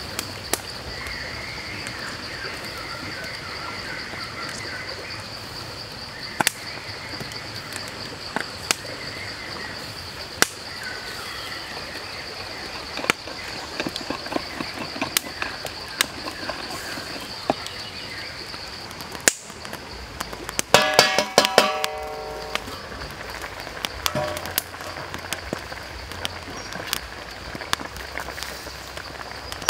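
A steady high insect drone with scattered small clicks and taps. About two-thirds through there is a short burst of rapid pulsed calls. After a cut, the low bubbling and crackle of chicken legs braising in a wok over a wood fire.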